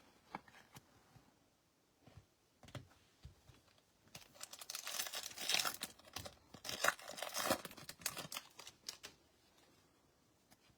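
A trading-card pack wrapper being torn open and crinkled, with a few light clicks of card handling first and then several seconds of dense crinkling.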